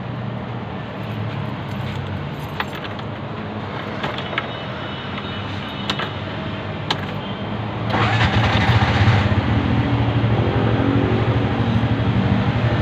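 Vehicle engine running at idle with a few sharp clicks. About eight seconds in comes a short burst of noise, and the engine sound becomes louder and steady.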